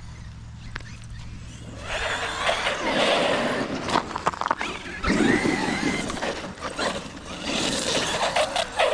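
Traxxas XRT electric RC monster truck driving past on wet pavement, its motor whining up and down with the throttle and its tyres hissing. It gets loud about two seconds in, and there are a few sharp knocks near the end.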